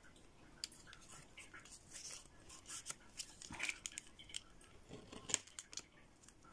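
Faint, irregular small clicks, taps and light scrapes of nail-stamping tools being handled against a metal stamping plate on the desk, with the sharpest click about five seconds in.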